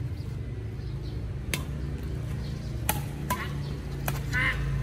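Badminton rackets striking a shuttlecock during a doubles rally: four sharp hits at uneven gaps of under a second to about a second and a half. A steady low rumble runs underneath, and a short warbling chirp comes near the end.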